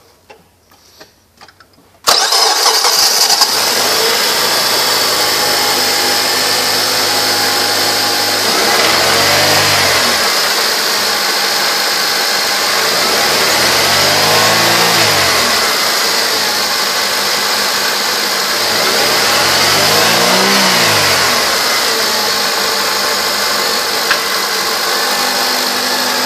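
A 2003 Honda Accord's four-cylinder engine starting about two seconds in and settling into a steady idle. It is revved three times, the pitch rising and falling each time, then idles again.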